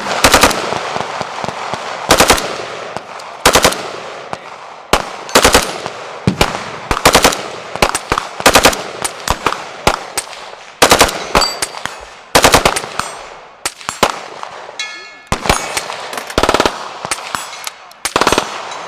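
Automatic rifle fire in short bursts of a few rounds each, about one burst a second, kept up throughout.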